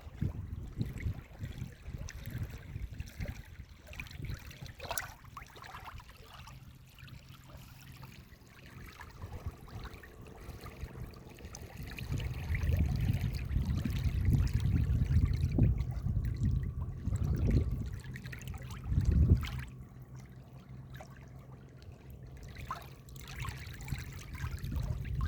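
Water of a stream trickling and running over rocks, with a choppy low rumble under it that grows louder for several seconds past the middle.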